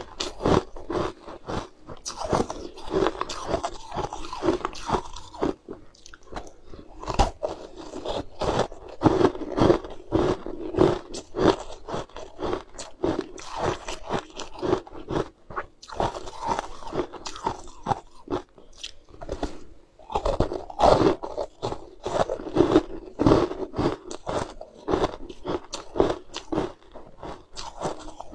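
Crunching and chewing of frozen, frost-coated balls bitten off wooden skewers: a dense run of crisp crunches, with a couple of brief pauses.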